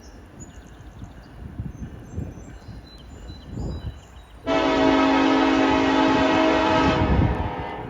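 Diesel freight locomotive's air horn sounding one long chord-like blast of about two and a half seconds, starting abruptly about halfway through. Before it there is a low rumble from the approaching train.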